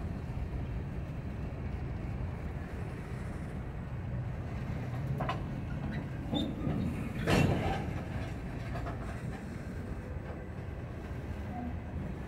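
Freight cars, boxcars and gondolas, rolling slowly past on jointed track, with a steady low rumble and occasional wheel clicks. A louder clunk comes about seven seconds in.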